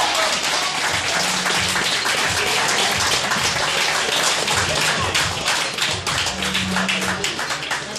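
Audience clapping: a dense run of many sharp, irregular claps.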